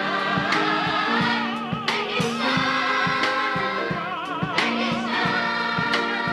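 Large choir of children and young people singing together, voices wavering with vibrato, over a steady beat.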